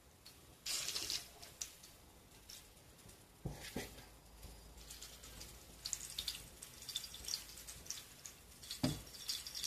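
96% rubbing alcohol being poured from a plastic squeeze bottle into a china plate, trickling and splashing faintly in uneven spurts. Two dull knocks, about a third of the way in and near the end.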